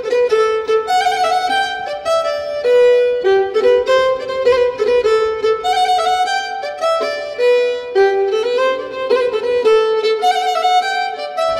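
Music: a solo violin playing a melody of held notes.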